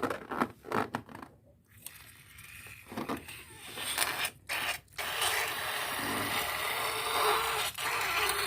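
A rubber balloon rubbing and scraping as it is handled. From about five seconds in comes a steady rush of air.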